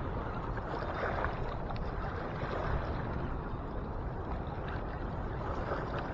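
Steady rushing noise of a swollen, fast-running river against a rocky bank.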